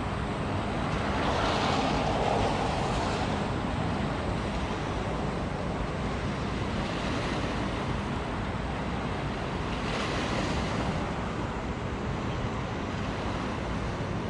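Water waves washing with wind on the microphone: a steady rushing noise over a low rumble. It swells twice, about two seconds in and again about ten seconds in.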